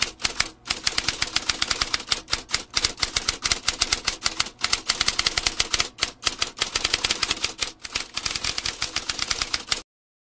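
Typewriter keys typing in a fast, uneven run of clacks with a few short pauses, cutting off abruptly near the end.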